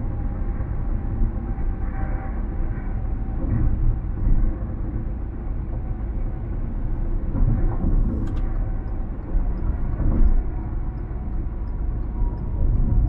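Car cabin noise at highway speed: a steady low rumble of tyres and engine, muffled through the body, with a few soft bumps and a faint high ticking about twice a second in the second half.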